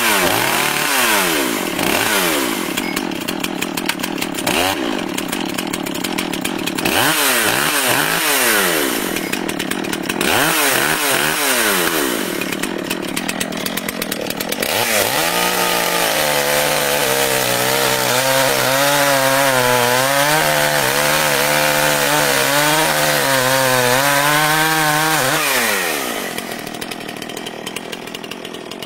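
Chainsaw engine revving up and down again and again, then held at high revs with a wavering pitch for about ten seconds before dying away near the end.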